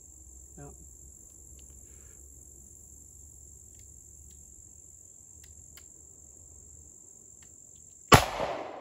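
Insects buzzing steadily at a high pitch, then about eight seconds in a single shot from an FN FNP-9 9mm pistol, a sharp crack with a short echoing tail.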